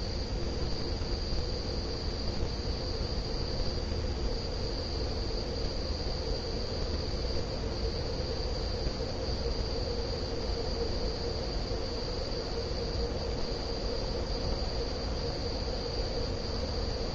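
SMC Laguna ceiling fan running steadily: a constant motor hum with a low rumble and a thin, steady high-pitched whine over it.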